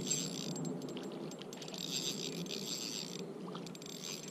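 Ultralight spinning reel being cranked in three short spurts as a small smallmouth bass is reeled in, a fast high rattle from the reel over the steady rush of the river.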